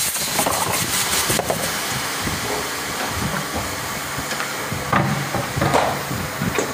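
Plastic blow-moulding machine running with a steady hiss of air, with a few knocks about five and six seconds in.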